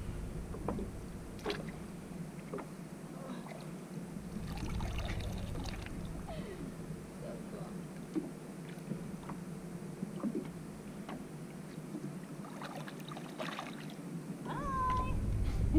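Water lapping and small splashes against the side of a flats skiff as a hand holds a caught permit in the water to revive it and let it swim off, with low wind rumble on the microphone at times.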